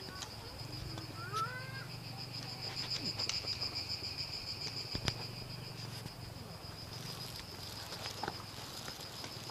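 An insect shrilling steadily in a high, rapidly pulsing tone, with a few sharp clicks and knocks, the loudest about five seconds in.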